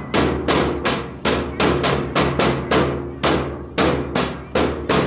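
Steady percussion beat of sharp strikes, about three a second, each ringing off briefly, keeping time for a group drill, over a steady low hum.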